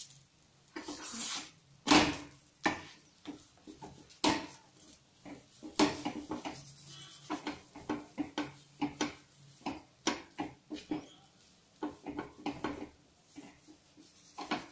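A steel spoon clinking and scraping against a flat iron tawa as a stuffed paratha is pressed down and moved around on it. The clinks are irregular, and the loudest comes about two seconds in.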